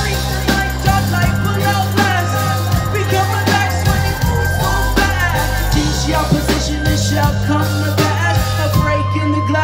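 Live band playing at full volume through a venue PA: held bass notes, drums and electric guitar.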